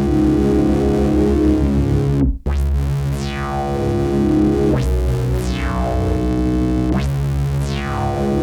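Pittsburgh Modular Taiga analog synthesizer playing sustained, rich chords. Each new chord comes with a bright sweep that falls in pitch, and the notes change abruptly a few times. The sound cuts out for an instant about two seconds in.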